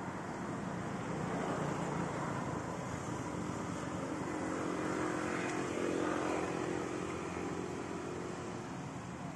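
A motor vehicle's engine running, building to its loudest about five to six seconds in and then easing off, like a vehicle passing.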